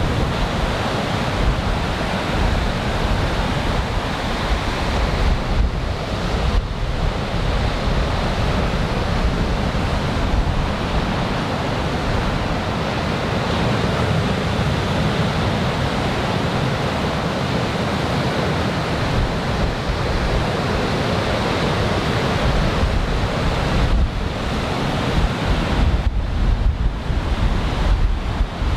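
Surf from a large typhoon swell breaking and washing on the beach, a steady rushing noise, with wind buffeting the microphone in a gusty low rumble.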